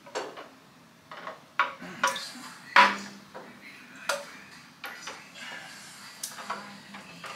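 Glass canning jars clinking and knocking against each other and the metal pressure canner as they are set down inside it: a string of sharp clinks, the loudest about three seconds in.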